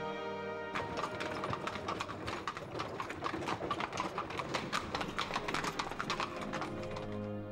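Horse's hooves clip-clopping on cobblestones as it draws a carriage, a fast, dense run of clops starting about a second in and stopping near the end. Background music plays before and after the hoofbeats.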